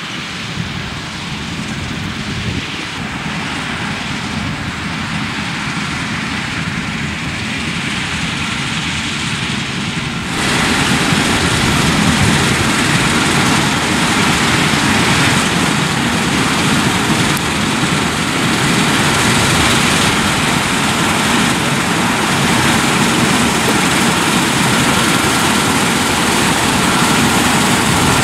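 Claas Lexion 7500 Terra Trac combine harvester threshing soybeans: engine and threshing machinery running steadily, growing louder as it approaches. About ten seconds in the sound jumps louder and brighter, from closer to the machine.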